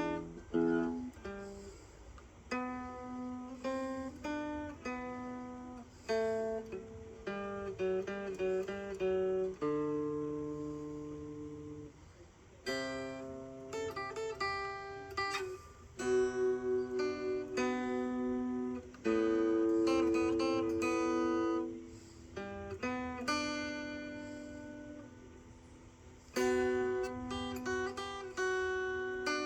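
A guitar played solo: picked notes and chords, each ringing out and fading before the next, with a fresh chord struck every few seconds.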